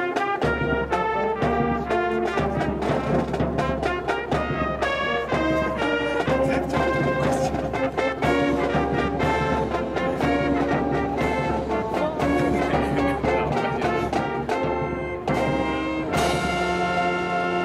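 Brass band playing a piece of quick successive notes, settling into a long held chord near the end.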